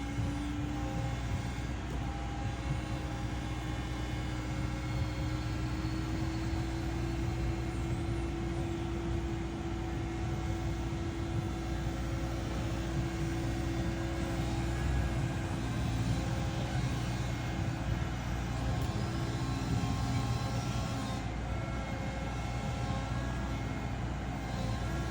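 Caterpillar 315 excavator running, with a steady diesel engine hum and a hydraulic whine that rises slightly in pitch in the first few seconds and then holds.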